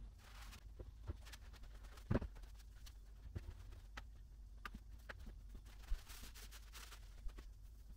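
Faint, scattered knocks and scuffs of a person moving about on vinyl floor tiles: footsteps, a cloth rubbing over the tiles and knees going down onto them. The loudest knock comes about two seconds in.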